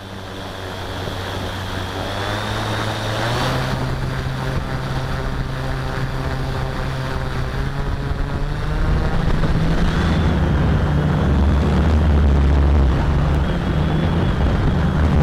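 Quadcopter's electric motors and propellers whirring as they spin up on the ground, the pitch stepping up about three and a half seconds in, then throttling up louder around nine seconds in as it lifts off. Heard from the camera mounted on the quadcopter itself.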